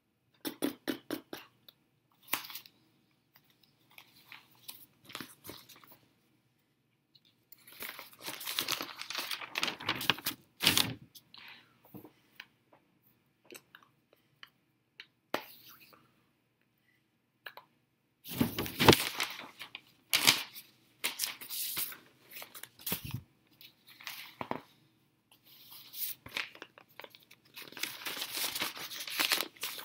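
Irregular bursts of rustling and tapping: handling noise close to the microphone. Near the end it turns into the crinkling rustle of a newspaper being handled.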